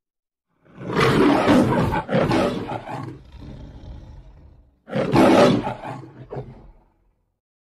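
The MGM logo's lion roaring: a long roar starting about a second in, then a second roar about five seconds in, each tailing off into short grunts.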